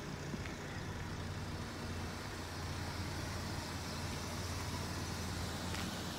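Nissan Tiida's petrol engine idling steadily, a low even hum.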